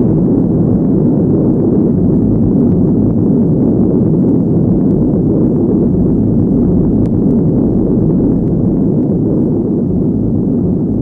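Steady, muffled low rumble of a Kawasaki Ultra jet ski running over choppy water, engine and rushing water blended together, picked up by a camera mounted on the craft.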